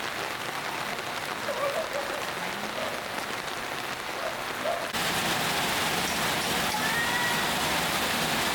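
Steady rain falling, with a sudden jump to louder rain about five seconds in.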